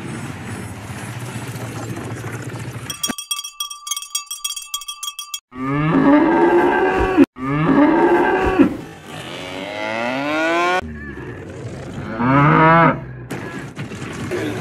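A cowbell clanks rhythmically for about two seconds after a steady noisy start. Then a cow moos four times in long drawn-out calls, the last one wavering.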